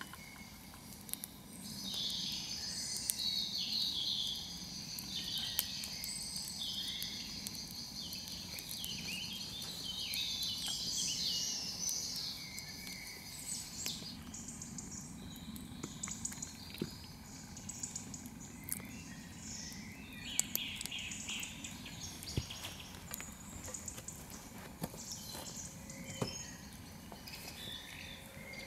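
Birds singing and calling at dusk, with chirping insects, over the scattered crackles and pops of a small wood campfire.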